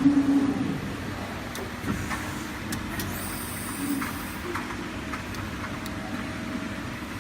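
Electro-hydraulic CNC servo press brake running, its pump and motor giving a steady pitched hum that swells loudly at the start and then settles lower. Scattered light clicks are heard, and a thin high whine comes in about three seconds in for roughly a second.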